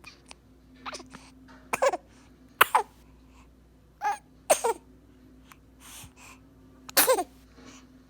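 Baby sneezing in a run of short, sharp bursts, about five of them, each ending in a brief falling squeak.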